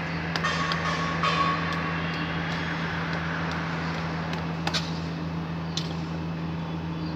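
Steady low hum of running machinery, with a few light clicks and taps from hand-tool work on an armoured cable.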